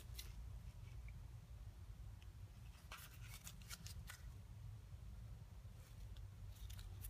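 A few faint, sharp metallic clicks as an engine piston is handled and turned over in gloved hands, over a low steady hum.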